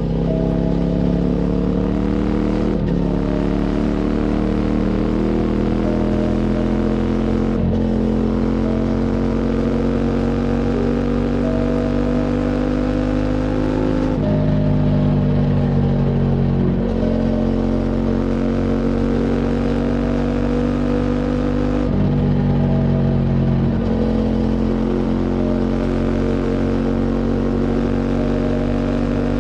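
QJ Motors SVT650X motorcycle's parallel-twin engine through an Arrow slip-on exhaust, pulling under throttle on the road. The engine pitch climbs, then drops sharply at each gear change, about six times.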